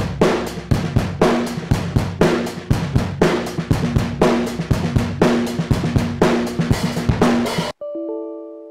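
Drum-kit loop (kick, snare and cymbals) played through a DIY Tube Screamer overdrive pedal as the effected track is printed. Near the end it cuts off suddenly, and a short computer chime of a few ringing tones fades out.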